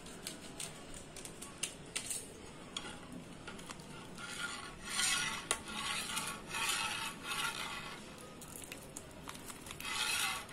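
A steel ladle stirring syrup in a steel pot: scattered light clinks of metal against metal, then the liquid swishing in bursts from about halfway through and again near the end.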